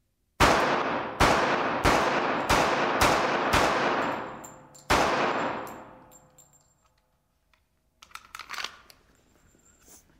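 Seven shots from a .45 ACP 1911 pistol firing 230-grain ball, six in quick succession and a seventh after a short pause, each with a long echoing tail.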